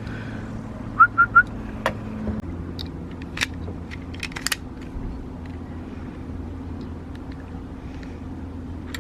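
A steady low mechanical hum that shifts in pitch about two and a half seconds in. Over it come scattered light clicks and taps as the new doorbell and its parts are handled, and three short high chirps about a second in.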